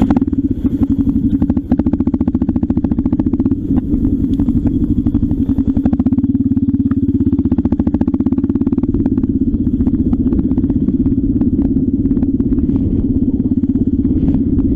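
Trail motorcycle engine running under way close to the microphone: a loud, steady, rapid train of exhaust pulses.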